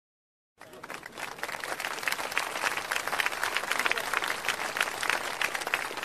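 Crowd applause, a dense patter of many hands clapping, starting suddenly about half a second in.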